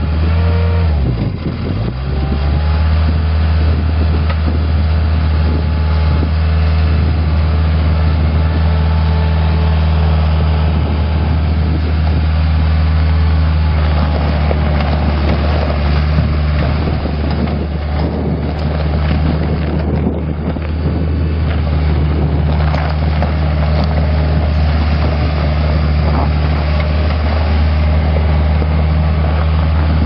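Bobcat S175 skid steer's Kubota four-cylinder diesel engine running at a steady speed. Its note dips briefly about a second in and comes back up, and there is extra rattling and knocking around the middle.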